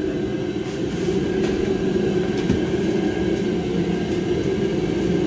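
Casters of a loaded steel welding cart rolling and turning across the floor, a steady rumble.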